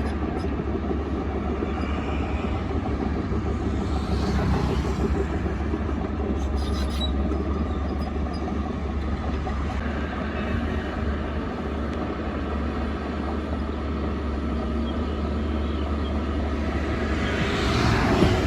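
Shantui DH17 C2 bulldozer's diesel engine running steadily, with a low drone. A brief swell of louder, harsher noise comes near the end.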